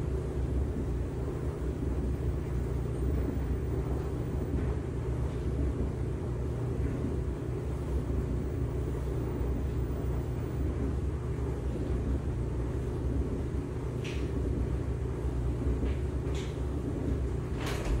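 LG washing machine running a cycle: a steady low hum and rumble, with a few light clicks near the end.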